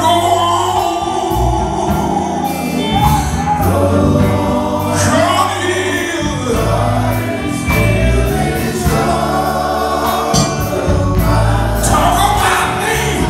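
Live gospel quartet singing through microphones: a male lead vocal over the group's harmony, backed by a band with bass guitar and drums.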